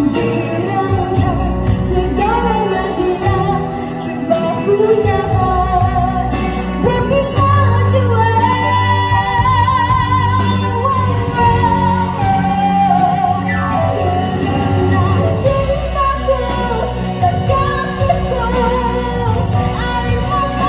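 A girl singing a Malay pop song into a microphone, backed by a live band of keyboards, guitars and drums.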